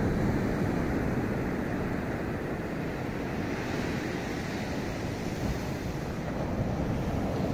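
Ocean surf breaking and washing on a sandy beach, a steady wash of noise, with wind rumbling on the microphone.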